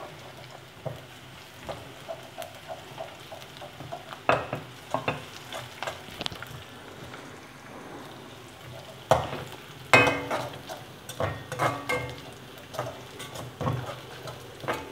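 Crushed ginger and garlic sizzling in a little oil in a metal kadai, while a slotted metal spatula stirs them briskly, scraping and knocking against the pan. The knocks come in quick runs, loudest in bursts about four seconds in and again from about nine to thirteen seconds.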